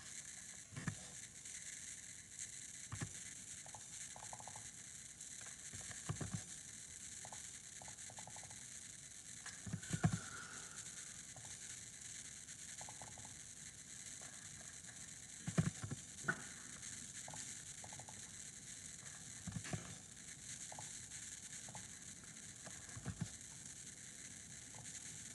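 Faint computer keyboard keystrokes and mouse clicks, scattered single taps and short runs of keys, over a steady hiss.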